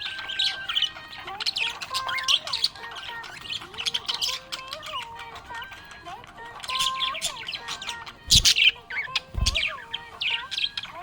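Budgerigar chirping rapidly and continuously over background music, with two loud bumps about a second apart near the end.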